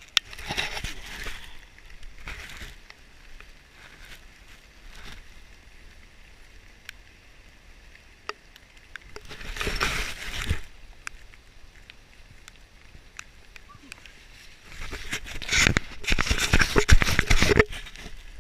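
Canoe paddle strokes splashing and water sloshing against the hull, in a few irregular bursts, the longest and loudest near the end.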